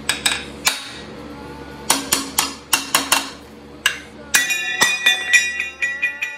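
Hammer striking the water pump pulley of a Jeep 4.0-litre engine to knock it loose from the pump hub: a quick run of sharp metallic knocks with ringing after each, coming thicker about two thirds of the way through.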